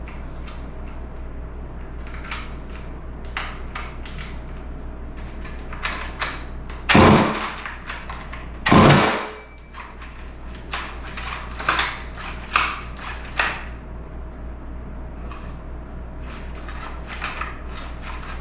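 Recoil starter of a vintage Montgomery Ward 10-inch chainsaw being worked by hand during a start attempt, with the throttle locked wide open and carburetor cleaner sprayed in: scattered clicks and knocks, and two loud half-second pulls about seven and nine seconds in. The saw does not start, and the starter does not feel right.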